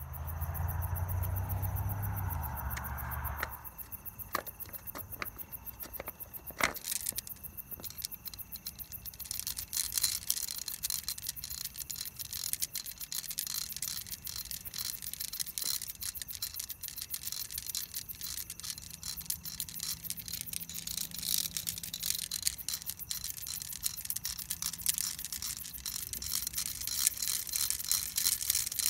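A long string of beads pulled hand over hand out of a narrow pipe: a dense, fast stream of small clicks and rattles as the beads run over the pipe's rim. It starts with a low steady hum for about three seconds, then a few separate clicks, and the continuous rattling sets in about nine seconds in.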